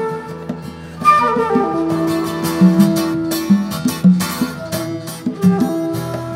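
Live acoustic band playing: a flute carries the melody, with a quick falling run about a second in into a long held note, over strummed acoustic guitar and conga drums.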